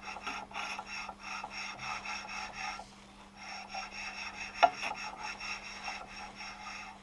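Steel straightedge thinly coated with marking paint rubbed back and forth along the hardened guideway of a 1A616K lathe bed: a metal-on-metal scraping rub in quick, even strokes, with a short pause about three seconds in and a single sharp knock a little past halfway. This is a paint check for high spots on the guideway after it was roughly scraped with an angle grinder.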